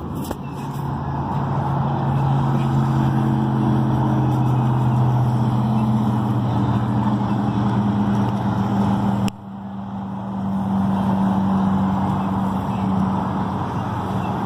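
Volantex Vector 28 RC speedboat running on the water: a steady electric-motor hum over water hiss. It cuts out abruptly about nine seconds in, then builds back up.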